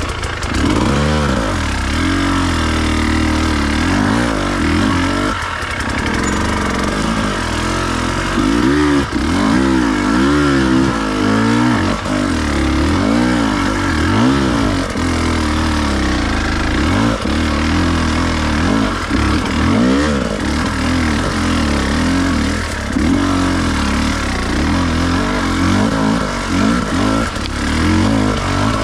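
Enduro dirt bike engine revving up and down over and over, its pitch rising and falling every second or so as the throttle is worked on rough off-road ground.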